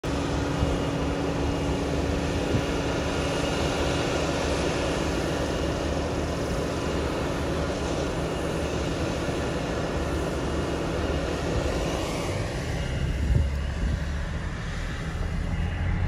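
John Deere 9500 combine harvester running steadily, a drone with a held hum and whine; about twelve seconds in its pitch drops and the sound thins out.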